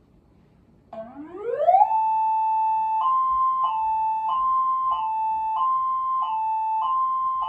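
Electronic siren modulator at full volume, really loud: about a second in, its tone sweeps up over about a second, holds, then goes into a hi-lo two-tone pattern, switching between two close pitches about every two-thirds of a second.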